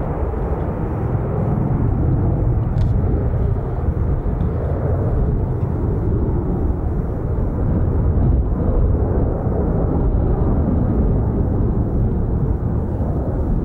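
Aircraft engine noise: a steady low rumble, heaviest in the bass, with no clear whine and no rise or fall.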